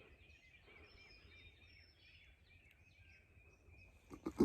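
Faint dawn songbird chorus: repeated short high chirps and whistles. Just before the end comes a sudden loud thump and rustle of movement close to the microphone.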